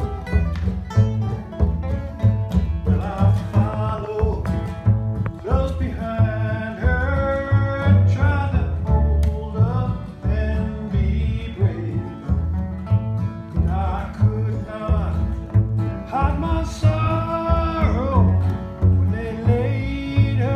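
Acoustic bluegrass band playing live: strummed acoustic guitar and plucked upright double bass keeping a steady beat, with a voice singing the melody from about three seconds in.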